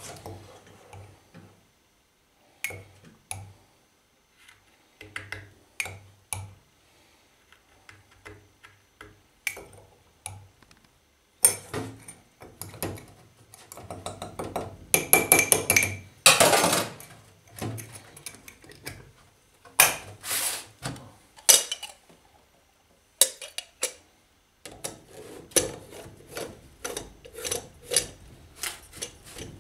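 Metal spoon clinking and scraping in a glass jar of ground coffee and in a stainless steel moka pot's basket, with knocks of the pot's parts on a steel counter. Near the end, a quick run of short gritty scrapes as the pot's top is screwed onto its base.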